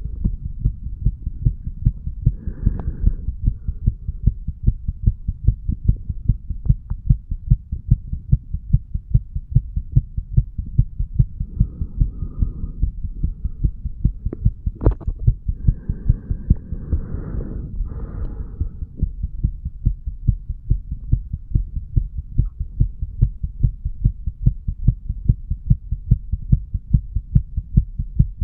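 A man's heartbeat recorded over the mitral valve area of the chest: a steady, even run of low lub-dub thumps. A few short patches of faint hiss pass over it.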